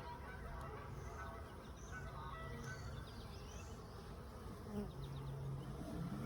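Honeybees buzzing around an open beehive, a steady low drone.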